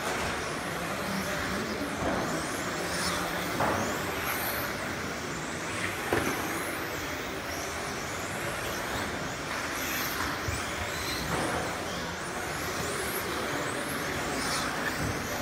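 Several electric RC touring cars with 13.5-turn brushless motors racing, their high whines rising and falling as they speed up and slow down through the corners. A few sharp knocks are heard along the way.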